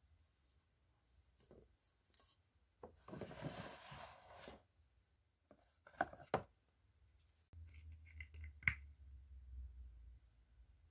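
Quiet handling sounds: a rustle about three seconds in, then sharp clicks and taps as a clear plastic jar with a black lid is picked up and handled.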